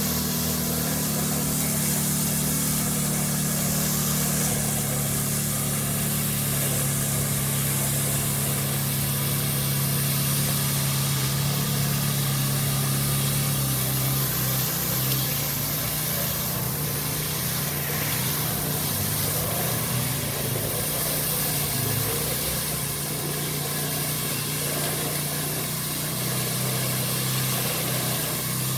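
Pressure washer engine running steadily under load, with the hiss of high-pressure water spraying onto a tarmac driveway.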